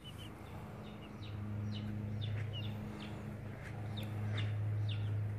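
Chicks peeping: a run of short, high peeps, each sliding down in pitch, repeated every half second or so over a steady low hum.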